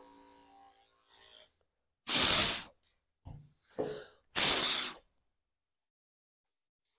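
Two loud, short puffs of breath about two seconds apart, each lasting about half a second, with two fainter puffs between them. Faint background music fades out in the first second.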